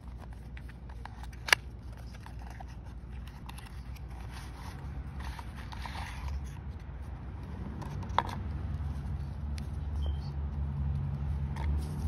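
Cardboard packaging and paper being handled and opened: card scraping and rustling, with a sharp click about a second and a half in and another about eight seconds in. A low rumble underneath grows louder toward the end.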